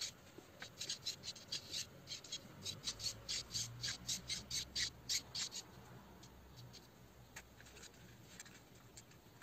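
A quick run of small plastic clicks, about four a second, from gloved fingers working the steering linkage on a 1/10-scale RC buggy chassis; the clicking stops about five and a half seconds in.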